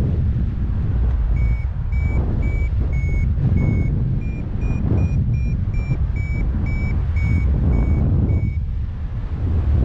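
Paragliding variometer beeping steadily at about two short high beeps a second, signalling lift, over heavy wind noise on the microphone; the beeping stops shortly before the end.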